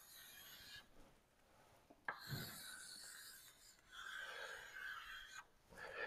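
Chalk scratching on a blackboard as a diagram is drawn: two faint stretches of strokes, one about two seconds in and one about four seconds in.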